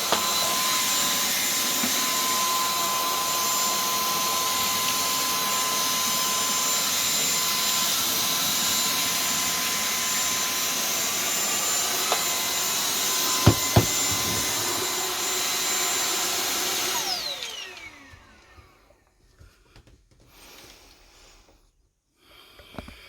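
WeClean 20V vacuum cleaner running steadily with a high whine as it sucks up grit and pebbles, with a couple of sharp clicks about 13 seconds in. It is switched off about 17 seconds in, the motor's whine falling in pitch as it winds down.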